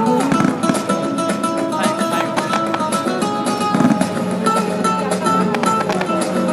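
Latin-style music led by a strummed and plucked acoustic guitar.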